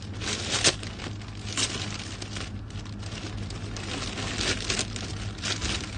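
Plastic shopping bag crinkling and rustling in irregular handfuls as it is pulled open to unwrap a gift.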